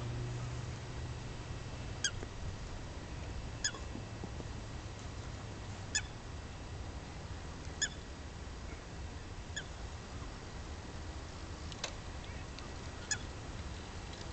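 Canada geese giving short, sharp honks, about six calls spaced a second or two apart, over a steady low outdoor hum.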